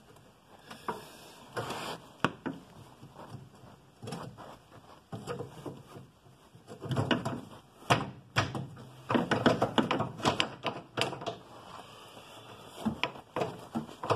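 Irregular knocks, clunks and scrapes of a car's front suspension control arm and its bolt being worked by hand into line with the bushing, sparse at first and coming thick and fast in the second half.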